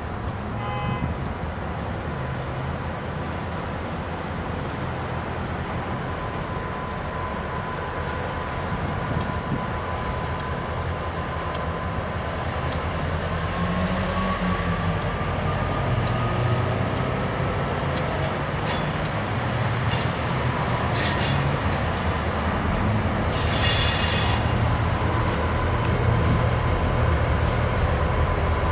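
Canadian Pacific SD40-2 diesel locomotive, with its EMD 16-cylinder 645 engine, running as it leads a short yard transfer past, getting louder as it comes closer. Brief high-pitched wheel squeals come in the second half, the strongest about four-fifths of the way through.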